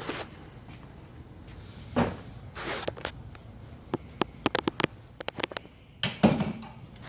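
A few knocks and thumps, with a short rustle, and a quick run of about a dozen sharp clicks in the middle.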